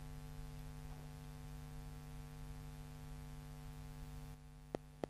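Steady low electrical hum, which drops in level about four seconds in. Near the end the Parapulser magnetic pulser starts pulsing on its Schumann-frequency setting: two sharp clicks, the first of a regular train.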